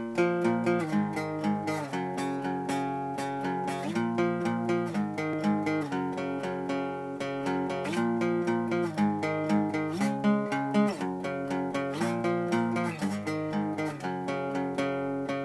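Epiphone acoustic guitar strummed in a steady rhythm, the chords changing about every second: the instrumental intro of a song, before any singing.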